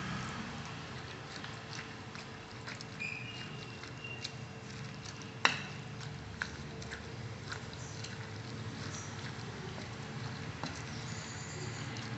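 Steel spoon stirring wet chopped lemon and chilli-powder mixture in a glass bowl: soft squelching with scattered small clinks of spoon against glass, and one sharp clink about five and a half seconds in. A faint steady hum runs underneath.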